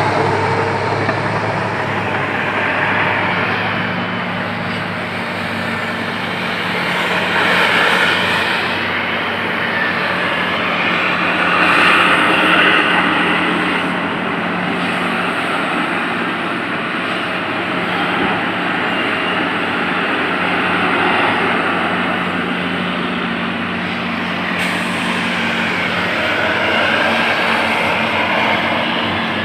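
Heavy diesel earthmoving machinery running under load: a steady low engine drone beneath a rushing noise that swells and eases every few seconds.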